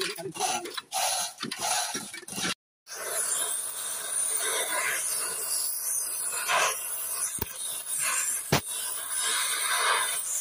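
Gas torch hissing steadily as its flame plays on an engine's crankshaft pulley, with a couple of sharp clicks about two-thirds of the way through. Voices come before it.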